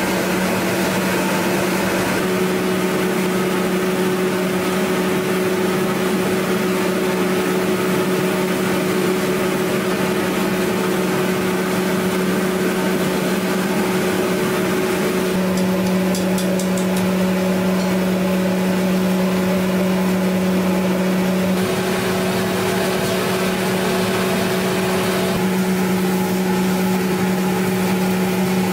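Processing machinery in a puffed rice mill running with a steady hum, a low drone with a fainter tone above it. The hum shifts slightly about halfway through, twice more near the end.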